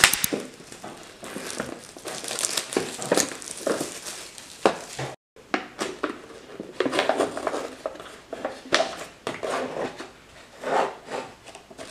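Crinkling and scraping of an instant noodle cup's packaging as hands work at the lid and peel it back, in irregular crackles with a brief break about five seconds in.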